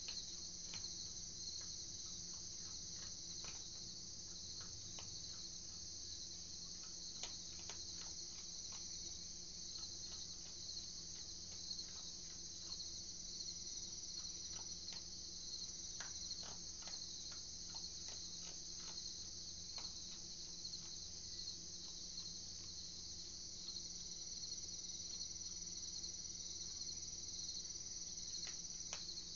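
A steady night chorus of crickets chirping. Scattered small clicks and crunches come from an opossum eating dry food. A faint low hum runs underneath.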